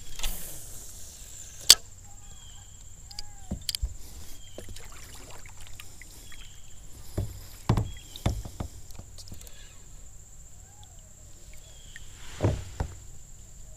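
Scattered knocks, taps and clicks of a spinning rod and reel being handled while casting and reeling from a plastic sit-in kayak. The loudest is a single sharp click about two seconds in, and there are heavier knocks about halfway through and again near the end.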